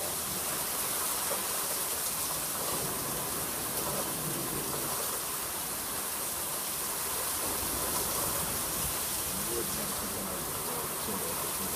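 Steady rain falling in a thunderstorm, an even hiss.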